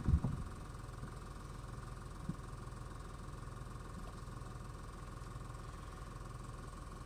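Steady electrical hum with a faint high whine from the workbench equipment, and a low knock right at the start with a small tick about two seconds later.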